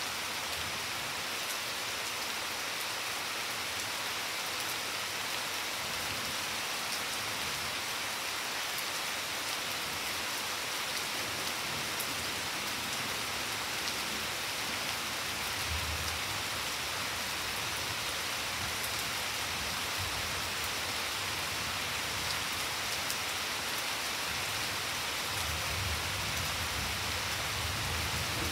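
Steady rain falling on garden foliage and a wet flagstone patio, an even continuous hiss, with faint low rumbles midway and near the end.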